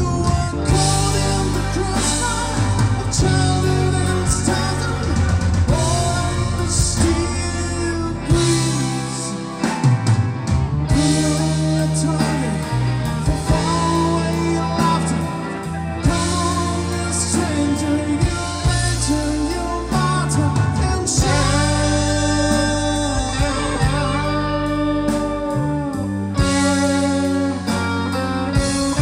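Rock band playing live through a PA: electric guitars, bass and drums, with a singing voice over them.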